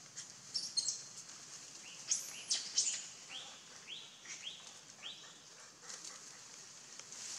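Small birds calling: a few sharp, high chirps, then a run of four short calls about half a second apart.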